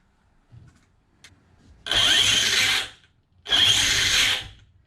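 Castle 1717 1650 kV sensored brushless motor spinning up the drivetrain of an Arrma Kraton EXB in two throttle bursts of about a second each, a second or so apart. This is a test run after the motor direction was reversed in Castle Link, checking that throttle, brakes and reverse now respond the right way.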